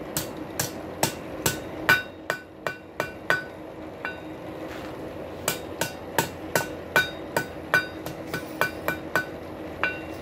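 Hand hammer striking a hot rail spike on a steel anvil, each blow followed by a brief ring from the anvil, as the spike's end is folded and shaped into a hook. The blows come about three a second, pause for a couple of seconds near the middle, then resume in a second run.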